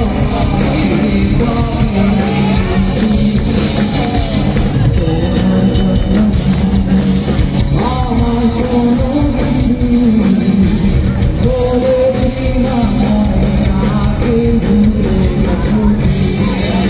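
Live rock band playing loudly: a lead singer's voice over electric guitars and a drum kit, heard through the stage PA from within the crowd.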